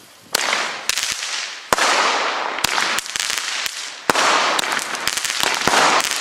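Firework battery going off: a continuous dense hiss of spraying sparks, with many sharp cracks scattered through it, starting about a third of a second in.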